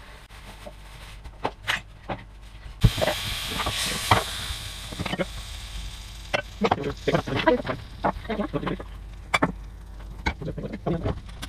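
Pancake batter sizzling in a hot frying pan. The hiss starts suddenly about three seconds in and dies away over several seconds, with the clatter of plates and cutlery at the counter throughout.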